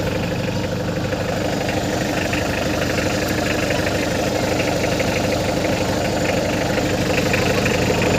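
Hyundai Grace H100 van's engine idling steadily, running smoothly again now that its old, clogged fuel filter has been replaced.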